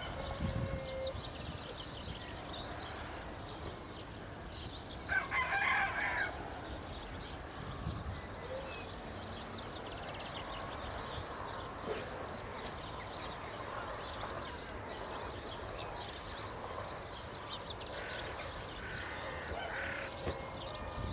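Outdoor birdsong: many small birds chirping in the trees, with one louder bird call lasting about a second, just after five seconds in.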